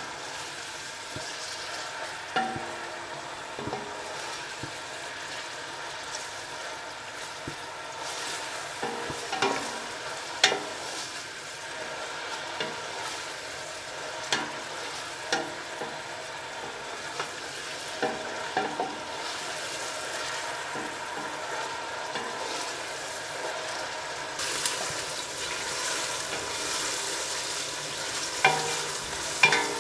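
Sliced onions sizzling as they fry in oil in a stainless steel pot, at the start of frying while they are still pale. A wooden spatula stirs them, with occasional sharp knocks against the side of the pot.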